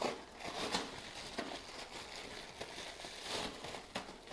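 Clear plastic bag crinkling and rustling as a toilet wax gasket is pulled out of it, with a few light crackles and handling knocks.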